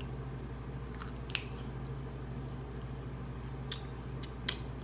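A person chewing and biting into barbecue chicken held in the hands, with a few short wet mouth clicks, most of them near the end, over a steady low hum.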